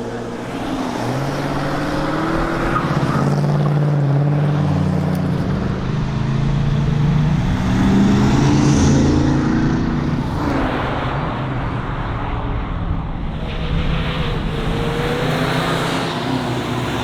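Ford Mustang GT's V8 engine driven hard, its pitch climbing as it accelerates and dropping back several times as the driver lifts or changes gear.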